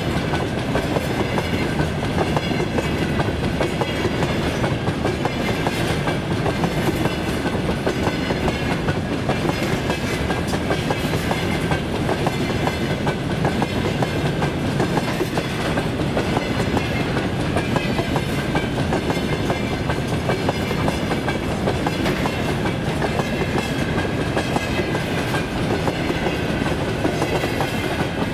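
A freight train of covered hopper wagons rolling past at close range: steady loud rumble of steel wheels on the rails with clickety-clack of the wheelsets over the rail joints, and a thin steady high tone running through it.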